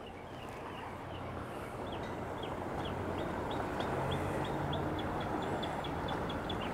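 A bird calls in a run of short, sharp chirps that come faster toward the end, over a low, steady hum of boat engines.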